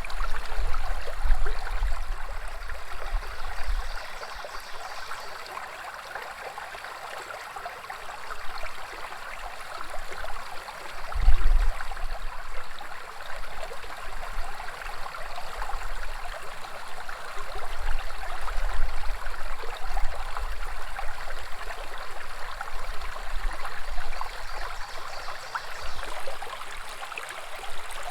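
Woodland brook babbling and trickling steadily over stones. A low rumble comes and goes beneath it, strongest about eleven seconds in.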